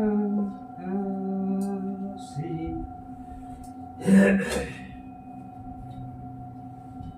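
A singing bowl rings with a steady, sustained hum at several pitches. A person's voice comes in short stretches over it, loudest about four seconds in.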